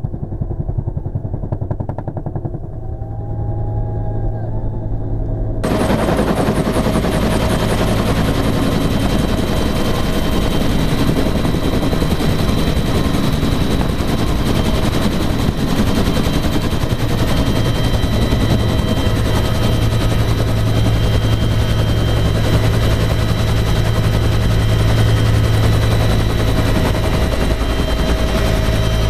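Bell UH-1 Huey helicopter in flight, heard from inside its open cabin: the fast, steady thudding of the two-blade main rotor over the turbine's running, with a steady high whine. For about the first five seconds the sound is muffled, then it suddenly turns clearer and louder.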